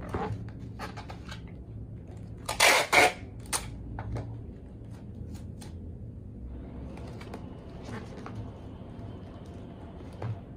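Bubble wrap around a parcel rustling and crinkling as hands handle it, with scattered light clicks and two loud, short rasps about three seconds in.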